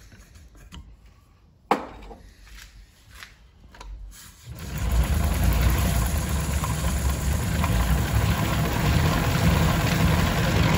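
Homemade 3D-printed kayak winch paying out: one sharp click about two seconds in, then from about four and a half seconds a loud steady whir as the spool and wooden hand wheel spin and the rope runs through the ceiling pulleys, stopping abruptly at the end.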